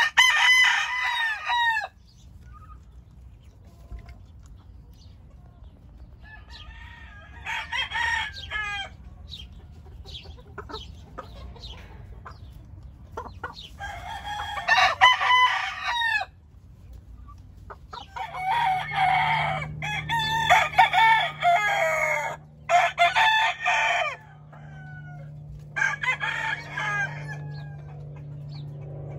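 Gamefowl roosters crowing in turn, each crow about two seconds long, coming every several seconds. Several crows overlap in a run about two-thirds of the way through.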